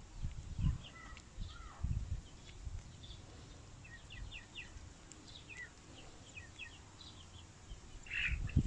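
Small birds chirping in short, high, repeated calls, with a few low thumps in the first seconds and a louder squeal near the end.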